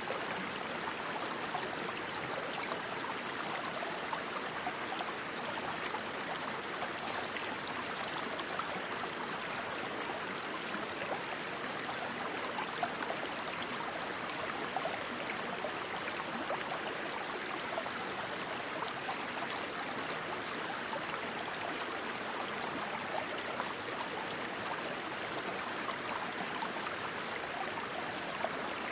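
Rushing stream water running steadily. Over it, short high-pitched chirps repeat irregularly, about two a second, breaking into a quick trill twice.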